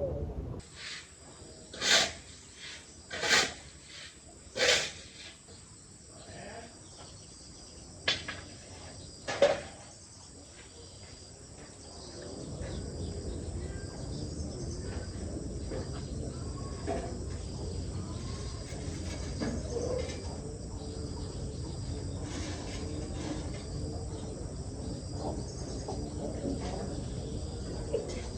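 Insects trilling steadily on a high pitch, with a few loud sudden sounds at about two, three and five seconds in and twice more near nine seconds. From about twelve seconds a low steady noise rises beneath the insects.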